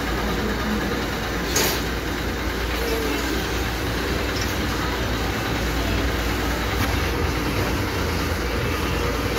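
Steady running noise of the bending press used to form steel rod into hooks, a low hum under an even mechanical noise, with one sharp metal click about a second and a half in.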